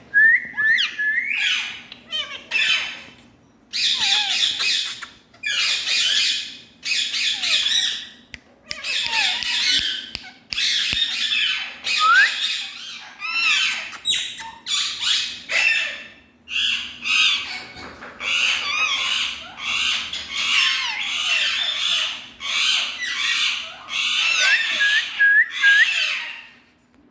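Indian ringneck parakeet giving harsh, loud squawking calls in runs of a second or two with short gaps between, mixed with a few short rising whistled notes.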